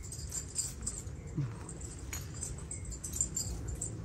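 Many bracelets on a woman's hands and wrists clinking and jingling as she moves, a scatter of light, high clicks.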